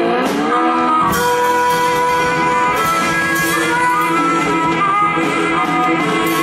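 Live blues band playing an instrumental passage: electric guitars holding notes over the drums, with several cymbal hits.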